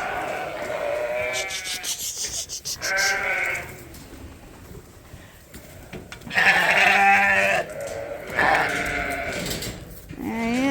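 Sheep bleating several times, the longest and loudest call about six to seven and a half seconds in, with a quick run of clicks around two seconds in.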